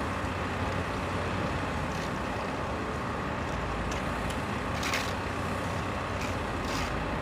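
Steady outdoor rumble of vehicle or traffic noise with a few faint clicks, cutting off abruptly at the end.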